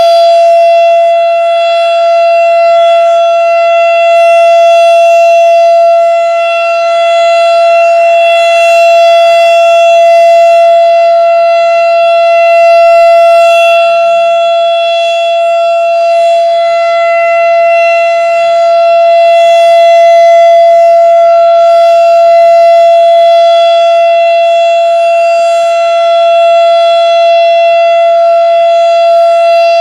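Darley STH-10 outdoor warning siren sounding the full alert signal: one loud, steady tone held at constant pitch. Its loudness swells and dips gently every several seconds.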